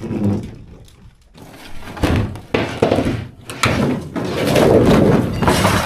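Demolition of a truck interior: a series of bangs, thuds and scraping as wooden panels and fittings are knocked and pulled loose, with a longer stretch of clattering near the end.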